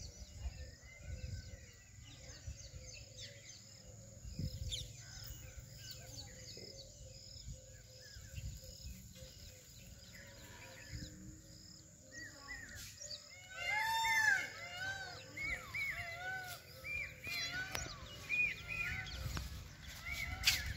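Birds calling outdoors over a low rumbling background. From about twelve seconds in, short arching chirps repeat again and again, loudest about two seconds later.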